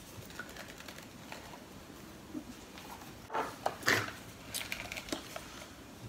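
Clicks and handling of a small plastic battery-powered mini vacuum as its dome housing is twisted open to reach the battery compartment; a handful of short sharp clicks starting about three seconds in.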